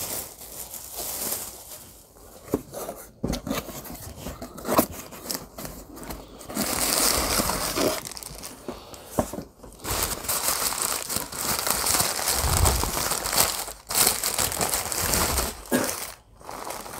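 Paper wrapping crinkling and rustling as a figurine is pulled from a paper shopping bag and unwrapped from crumpled yellow paper, with irregular sharp crackles and a few longer stretches of steady rustling.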